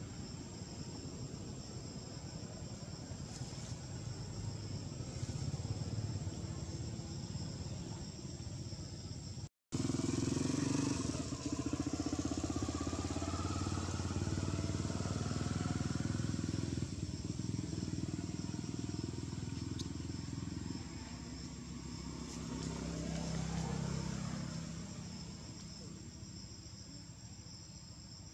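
A steady high-pitched insect drone, with a motor vehicle engine running that grows louder, rising and falling in pitch as it passes, from about ten seconds in until it fades near the end. The sound cuts out for an instant just before the engine grows loud.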